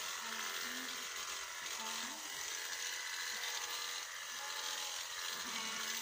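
Electric sheep-shearing clippers running with a steady buzz as they cut through the fleece.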